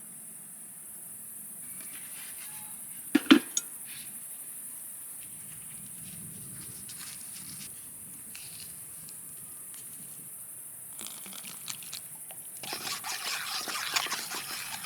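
Cooking at a camp stove: a single sharp knock of a utensil about three seconds in, then food crackling and sizzling in hot oil from near the end. A steady high hiss of crickets lies underneath.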